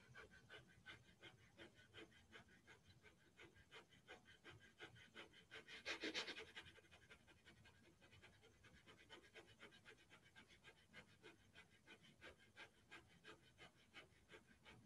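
A man doing Breath of Fire: fast, rhythmic, forceful breaths, faint throughout. About six seconds in comes one louder, longer breath lasting about a second.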